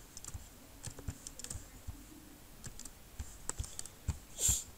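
Irregular clicking of a computer mouse and keyboard, with a brief louder noise near the end.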